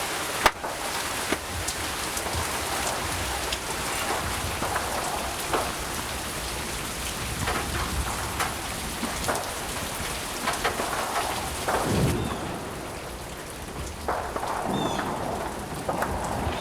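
Heavy rain falling steadily, dense with the ticks of individual drops, over a low rumble of thunder. A sharp tap comes just after the start, and the rain eases somewhat about twelve seconds in.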